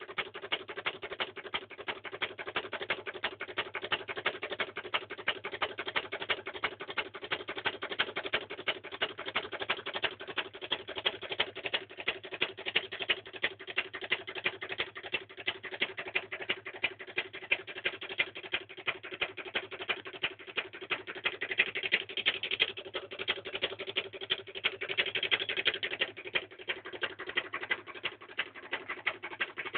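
Three-coil reed-switch magnet pulse motor running: a rapid, steady clicking as the reed switch fires the coils, over a steady hum.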